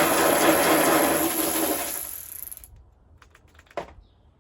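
Ratchet wrench spinning a hood bolt loose, a fast continuous ratcheting that fades out about two and a half seconds in, followed by a single click.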